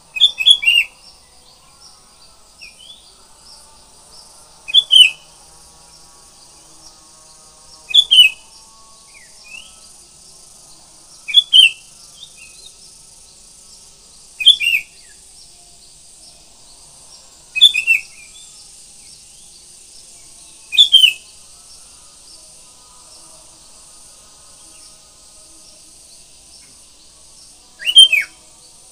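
Sooty-headed bulbul singing short, loud phrases about every three seconds, eight in all, with a longer pause before the last one. A steady high insect hiss runs underneath.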